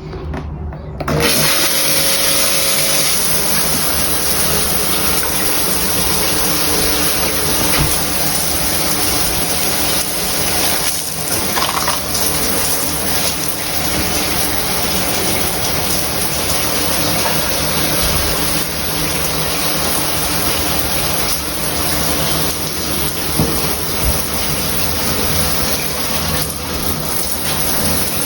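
Mira Sport Max electric shower with Airboost running, its head spraying water steadily; the spray starts about a second in.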